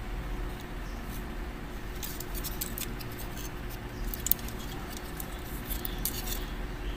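Light clicks and rattles of a plastic SD Gundam model's parts and clear-plastic wing pieces knocking together as it is handled and turned, with one sharper click about four seconds in, over a steady low background hum.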